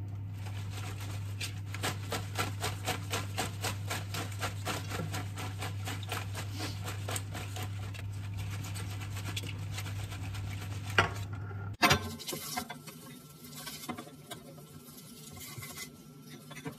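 A plastic colander of wet iceberg lettuce being shaken to drain it, the leaves rattling against the sides about four times a second over a low steady hum. Two sharp knocks come about two-thirds of the way in, followed by quieter crisp rips of lettuce leaves torn by hand.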